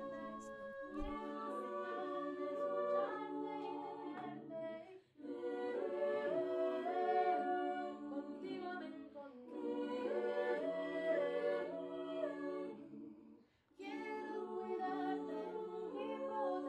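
An R&B a cappella group singing in several-part harmony with no instruments, in sustained phrases broken by brief pauses about five and thirteen seconds in.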